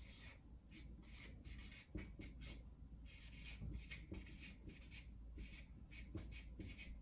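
Marker pen scratching across flip-chart paper in a string of short, faint, irregular strokes as letters are written.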